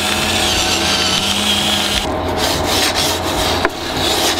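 A pepper mill grinding for about two seconds, then a wooden spoon scraping and tossing pasta in a frying pan.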